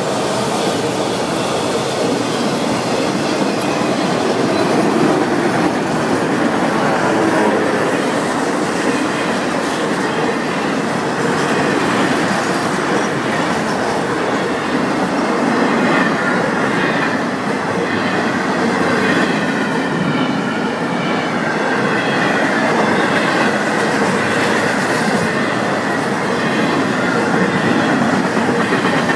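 Florida East Coast freight train's empty autorack and intermodal well cars rolling past: a steady, loud rumble of steel wheels on rail with some wheel squeal.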